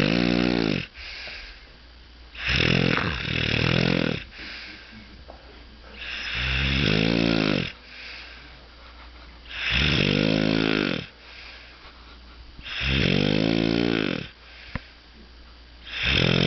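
Loud, regular snoring: a long rasping snore on each in-breath, about one every three seconds, with quieter breathing in between.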